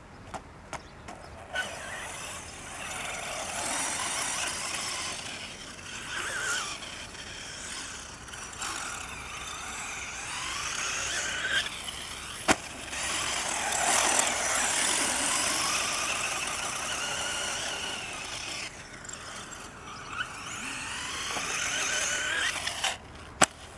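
Electric radio-controlled buggy's motor whining, its pitch rising and falling as the throttle is worked, over a steady hiss. There are a few sharp clicks near the start, one about halfway through and one near the end.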